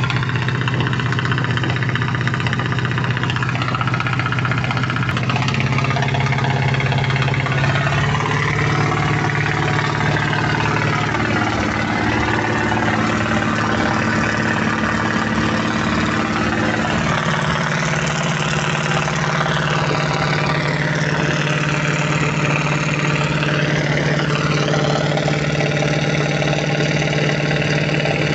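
Mitsubishi 8DC V8 diesel engine in a 15-ton boat running steadily, its pitch shifting slightly a few times.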